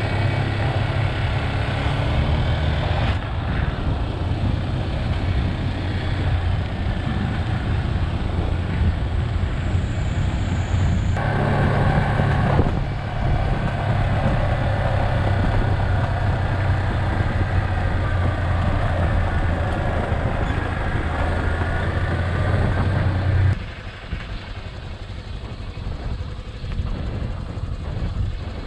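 Motorcycle engine idling steadily, a constant low hum with no revving, then stopping abruptly about 23 seconds in.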